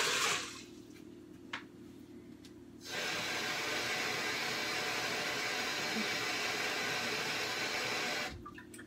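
A kitchen tap runs steadily into a glass measuring bowl, starting about three seconds in and shut off near the end. At the very start, water poured from the bowl into the pressure cooker pot trails off, and a light click follows.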